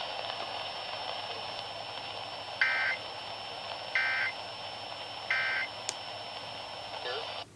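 Emergency Alert System end-of-message code received over the radio: three short bursts of warbling digital data tones about 1.3 s apart, over a steady hiss, marking the end of the alert.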